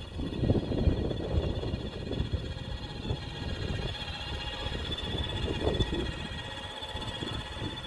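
Kids' electric ride-on 4WD beach buggy driving, its motors whining steadily over the rumble of its wheels on the ground.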